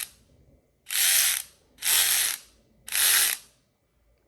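Snap-on CTR861 brushless 14.4 V cordless ratchet run by its trigger in three short bursts of about half a second each, roughly one a second, the head spinning briefly each time.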